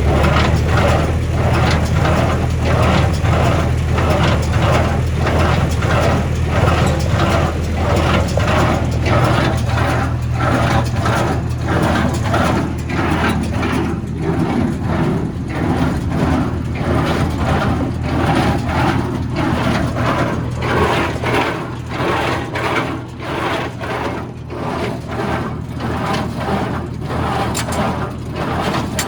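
John Deere 336 square baler running, driven by a tractor: a steady engine hum under the baler's regular mechanical knocking, about one and a half strokes a second.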